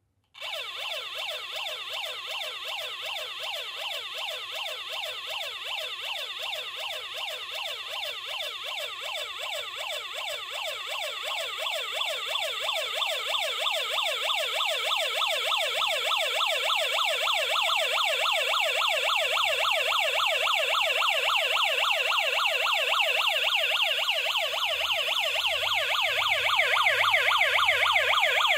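KD9561 electronic siren module driven through a transistor into a small loudspeaker, sounding a siren tone that sweeps up and down many times a second. It switches on abruptly and grows louder about halfway through as the supply voltage is turned up.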